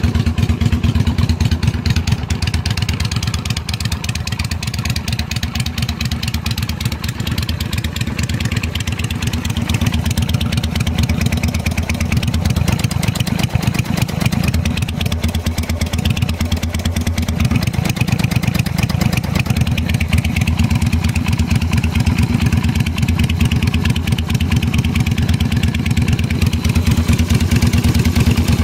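Yamaha XV250 Virago's small air-cooled V-twin idling steadily through short homemade open drag pipes, the exhaust popping. The owner takes the popping for a lean mixture caused by the freed-up exhaust, to be cured by jetting or the mixture screw.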